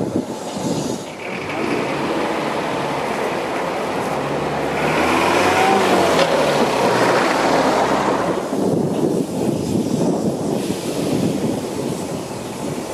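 A steam tank locomotive moving a short goods train. Then a vintage lorry's engine runs, its pitch rising and falling, loudest about five to eight seconds in. A steady rumble follows near the end as a diesel locomotive approaches.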